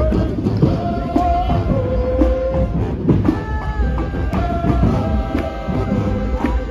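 Loud music with drums and a heavy bass under a held melody line.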